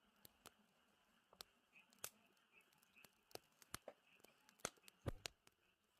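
Campfire crackling: sparse, irregular sharp pops from the burning wood, with the loudest cluster about five seconds in.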